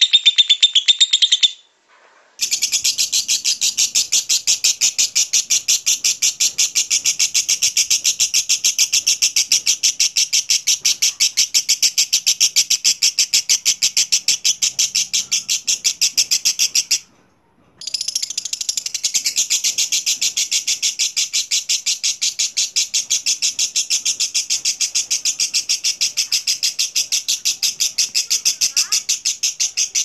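Fischer's lovebird singing its long, unbroken rapid chattering trill (the 'ngekek' song). It comes in two long runs of roughly fifteen and twelve seconds with a brief break between them, after a short call right at the start.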